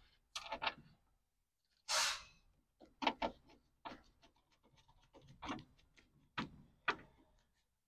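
Small clicks, taps and rubbing knocks of screws and hand tools being handled at the door, with a short breathy hiss about two seconds in.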